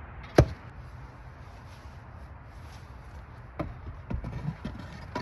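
A single sharp knock about half a second in, then a few lighter knocks and taps near the end: workpieces or tools being handled and set down.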